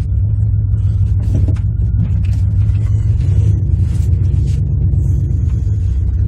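A vehicle engine running steadily at a constant low hum while the vehicle is backed up and manoeuvred, with light scattered clicks and rattles over it.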